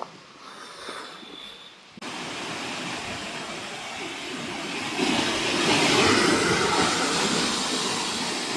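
Waterfall rushing. The steady roar of falling water starts abruptly about two seconds in and grows louder about five seconds in.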